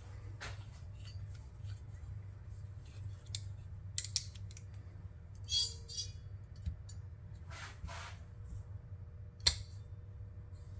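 Vice grips (locking pliers) clicking and scraping against a small stuck case screw that will not turn, with scattered light metal clicks, a brief ringing scrape past halfway and a sharp click near the end. There is a low steady hum underneath.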